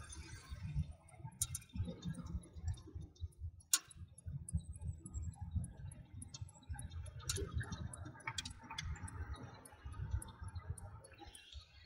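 Inside a moving car: an uneven low rumble of road and engine noise, with scattered sharp clicks and ticks at irregular moments, like interior rattles.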